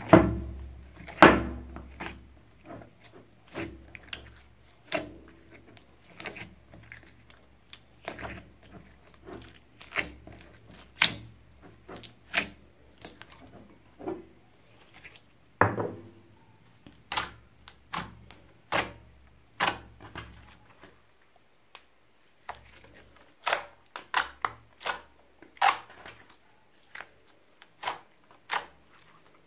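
Slime squeezed, poked and kneaded by hand, giving irregular wet clicks and pops, a few a second with short lulls. The loudest pops come right at the start.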